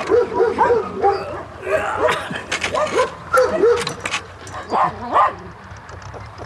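A dog giving many short, pitched calls in quick succession, which die away about five seconds in.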